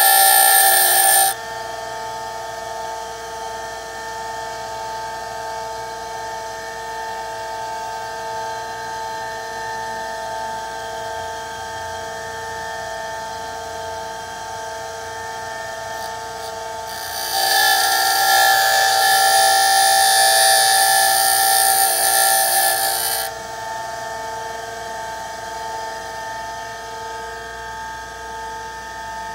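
Bench grinder running with a steady motor whine. A steel twist drill bit is pressed to the grinding wheel just at the start and again for about six seconds past the middle, each time giving a loud, hissing grind as the bit's cutting edges are reground.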